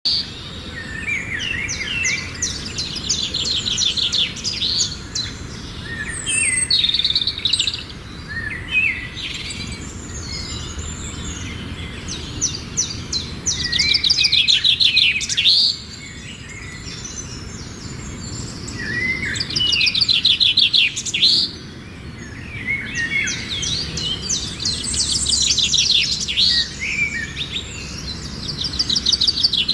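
A group of birds chirping and calling, with overlapping fast trills coming in bursts of a second or two and shorter chirps between them.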